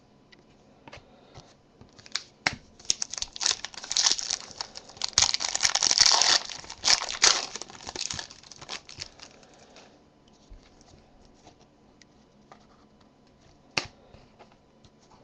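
Foil trading-card pack wrapper being torn open and crinkled, loudest a few seconds in, followed by light rustling and one sharp click near the end.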